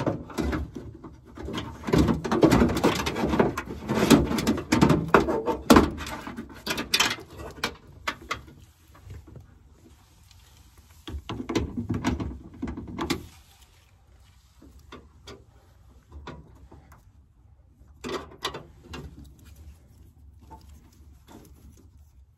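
Clattering, rubbing and clicking as a wiring harness and its plastic clips are worked loose and pulled through the inner panel of a car's trunk lid. It is loudest in the first several seconds, with another burst of handling noise about halfway through and scattered clicks after.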